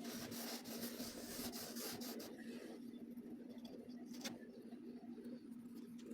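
Kinetic sand being worked, a soft continuous scratchy rubbing and crumbling sound. A steady low hum runs underneath, and there is a single sharper click about four seconds in.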